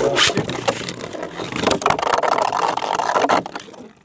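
Two 3D-printed Beyblade spinning tops whirring and grinding against each other in a stadium, with sharp clacks as they collide. The noise cuts off suddenly about three and a half seconds in as the battle ends.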